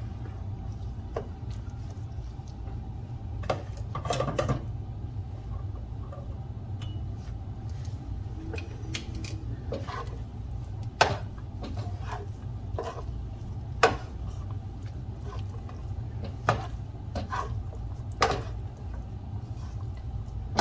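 Spaghetti being tossed in a frying pan with metal tongs and a silicone spatula: scattered clicks and knocks of the utensils against the pan and each other, with a small cluster about four seconds in, over a steady low hum.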